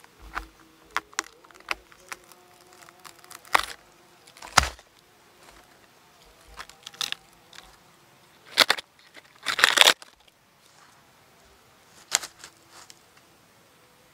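Knife blade cutting into a durian's spiny husk and the husk being pried apart: a series of irregular sharp cracks and clicks, the longest and loudest a splitting crack about nine and a half seconds in. A faint steady buzz runs underneath for most of the time.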